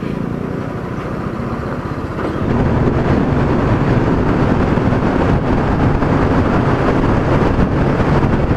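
Motorcycle engine running at riding speed under wind and road noise. About two and a half seconds in it turns louder and fuller, as the bike runs through a road tunnel.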